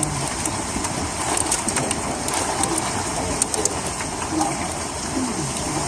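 Hailstorm: heavy rain and hail pelting down in a steady rush, with many sharp clicks of individual hailstones striking hard surfaces.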